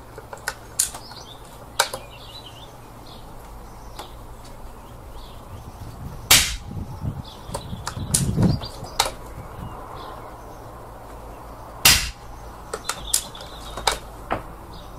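Two shots from a Daystate Wolverine Mk1 pre-charged pneumatic air rifle fitted with an Airgun Capital silencer, about five and a half seconds apart.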